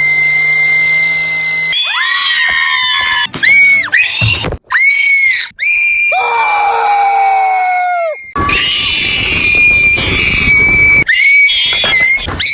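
Shark Puppet character's screams, a rapid string of short clips cut back to back. It opens with one long, steady, high-pitched scream, followed by many brief shrieks that swoop up and break off sharply, a lower falling cry midway, and a rougher, raspier stretch near the end.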